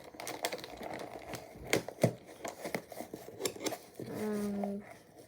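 Hands handling a homemade paper-and-cardboard vending machine: irregular clicks, taps and crinkling rustles. A short steady hum sounds about four seconds in.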